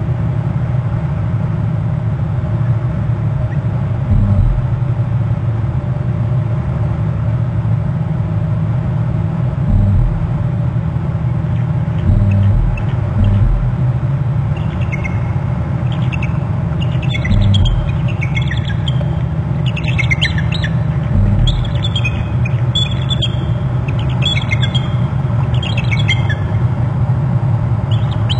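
Bald eagle calling: repeated groups of short, high, piping notes that fall slightly in pitch, starting about halfway through and growing busier toward the end. Under them runs a steady low rumble with a few dull low thumps.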